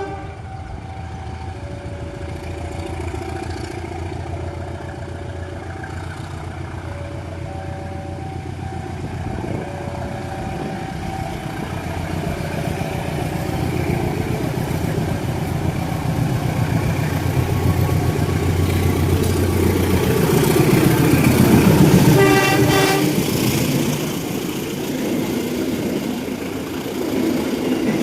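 A diesel train approaching and passing at close range, its engine drone building to a peak about twenty seconds in. It gives a short horn blast near the loudest point. For the first half, a two-note warning signal alternates steadily, typical of a railway level-crossing alarm.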